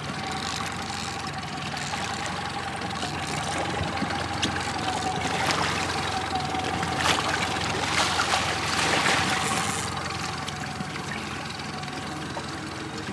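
A 115 hp outboard motor running steadily, with a constant whine under it. From about five to ten seconds in, a hooked coho salmon splashes at the surface and is scooped up in a landing net.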